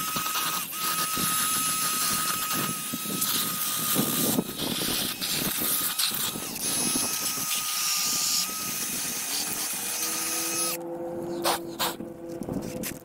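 A small handheld power tool running, a steady high whine over a dense hiss. About eleven seconds in the hiss cuts away, leaving two lower steady tones.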